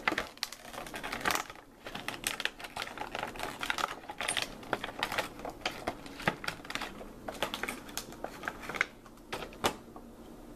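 Plastic blister packaging and a cardboard box being handled to free a die-cast toy car: irregular crinkling and clicking throughout.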